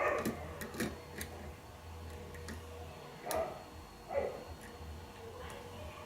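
Small, faint metallic clicks and ticks of a lock pick and tension wrench working the pins inside a pin-tumbler lock cylinder during single-pin picking, scattered at irregular intervals.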